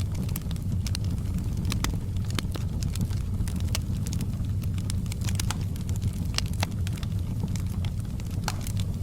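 Wood fire in a fireplace burning, with irregular sharp crackles and pops over a steady low rumble.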